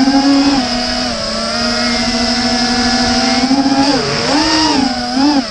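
Small FPV racing quadcopter's brushless motors and propellers whining, heard from the on-board camera. The pitch holds fairly steady at first, then dips and climbs several times in quick succession near the end as the throttle is worked during a low pass.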